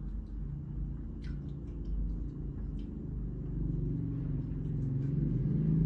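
A low, steady rumble with a hum in it, slowly growing louder, with a few faint light clicks over it.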